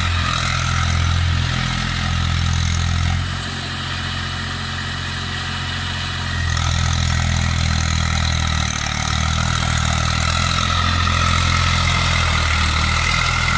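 Eicher 380 tractor's diesel engine running steadily under load as it ploughs through a flooded, muddy field; it eases off for about three seconds near the middle, then picks up again.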